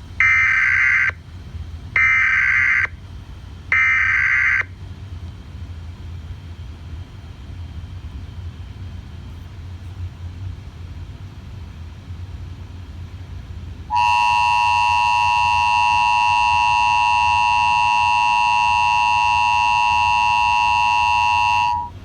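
Emergency Alert System tones for a tornado warning. First come three short bursts of warbling SAME digital header data, about a second apart. After a stretch of only a low hum, the steady two-tone EAS attention signal (853 and 960 Hz) sounds for about eight seconds, then cuts off.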